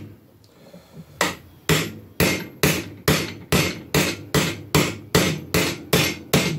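Two-pound sledgehammer striking a metal seal driver, tapping a new grease seal into a Honda TRX250R axle carrier. After a short pause there is a steady run of sharp metal-on-metal blows, about two a second, each ringing briefly, as the seal is driven down to its seat.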